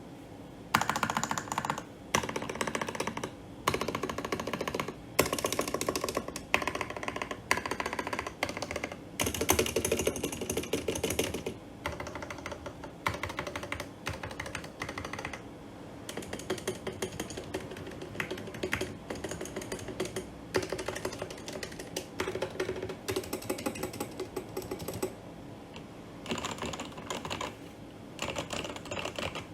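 Typing on a Cooler Master CK530 V2 mechanical keyboard fitted with Revelation keycaps: rapid key clacks in bursts of a second or two, with short pauses between bursts.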